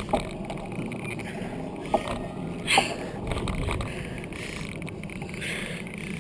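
Wind rushing over the microphone and the rumble of a bicycle being ridden, with three short squeaks.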